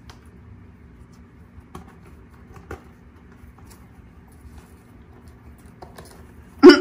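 Kittens' claws scratching and pattering on a corrugated cardboard scratcher, faint soft scratches and ticks. Near the end comes one short, much louder sound.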